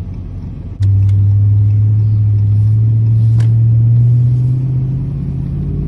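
Dodge Ram 2500's Hemi V8 engine under heavy throttle. It jumps suddenly louder about a second in, and its note then climbs steadily as the truck accelerates.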